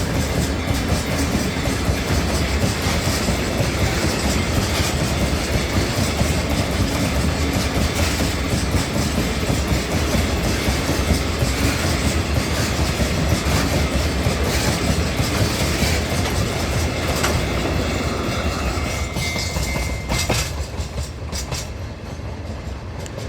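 Chichibu Railway freight train rolling past over a level crossing, its wagon wheels clattering steadily over the rail joints. The sound fades about twenty seconds in as the last wagons go by.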